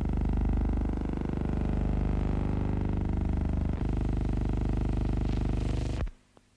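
Steady low hum with a fast, even buzz: the noise floor of a silent film's soundtrack as run through a projector or transfer, not sound from the scene. It drops out for about half a second near the end, at a splice in the film.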